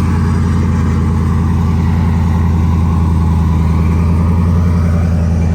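Off-road truck engine running steadily at low revs, a constant low drone.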